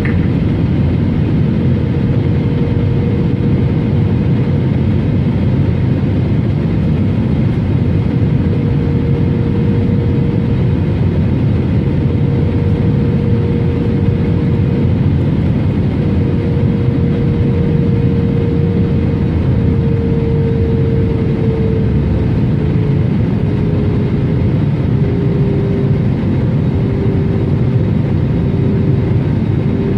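Steady cabin noise of an Airbus A321neo in descent: engine drone and the rush of air over the fuselage, heavy in the low end. A faint engine hum steps down slightly in pitch about two-thirds of the way through.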